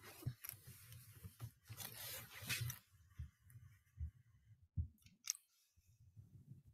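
Faint scattered clicks and rustles of someone working a computer at a desk, picked up by a video-call microphone.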